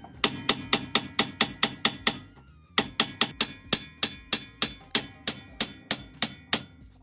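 Hammer blows on a steel punch held to the end of a front CV axle in the wheel hub. The strikes are sharp and ringing, about four a second: about ten, a short pause, then about seventeen more.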